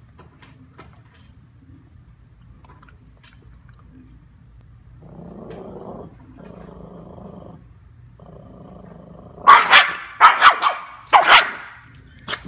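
Small dog growling in three stretches, then breaking into a quick run of loud barks, with one more bark near the end.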